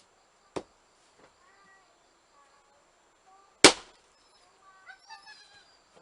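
Blacksmith-forged axe striking firewood as it is split: a lighter knock under a second in, then a much louder, sharp crack about three seconds later.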